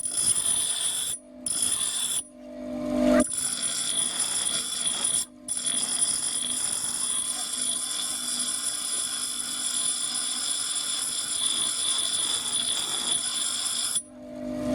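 A power tool running with a steady high-pitched whine over a hiss, broken by abrupt cuts about a second in, near two seconds, around five seconds and near the end.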